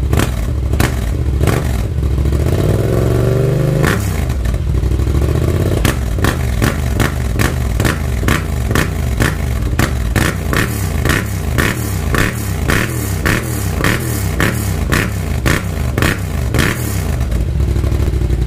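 Yamaha FZ-07's parallel-twin engine running through a Black Widow full aftermarket exhaust, revved up once and dropping back about four seconds in. It then goes through a long run of quick, regular throttle blips and shuts off abruptly at the end.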